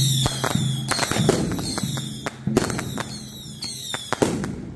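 Firecrackers going off in sharp, irregular bangs. A high falling chirp repeats about once a second over them.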